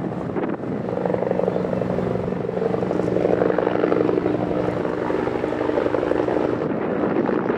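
Airbus A320 jet engines running loud and steady as the airliner flies past: a roar with a steady hum of several pitches, swelling about three seconds in.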